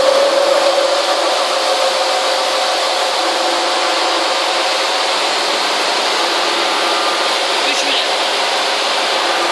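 Face mill on a milling machine's angle head cutting across a metal plate: a steady cutting and machine noise with a continuous hum, slightly louder in the first second.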